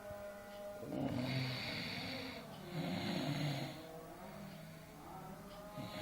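A sleeping person snoring: two loud snoring breaths in quick succession, one about a second in and one about three seconds in, each a low rasping rattle with breathy hiss.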